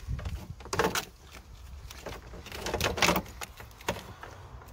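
Engine wiring loom in corrugated plastic conduit being pulled free in a car's engine bay: the conduit and its connectors rustle, scrape and clack, with sharper knocks about a second in and around three seconds.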